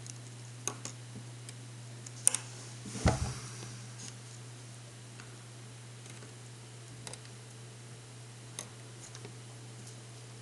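Scattered light clicks and ticks of thin insulated wires being handled and untwisted by hand, with two sharper knocks about two and three seconds in. A steady low hum runs underneath.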